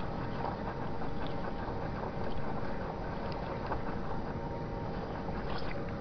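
Seismometer ground-vibration recording sped up 120 times: a dense rumbling hiss of ground noise with several steady tones, which appear to be the vibration of the Bohernabreena Waterworks' giant water pumps. A few faint brief swishes pass over it.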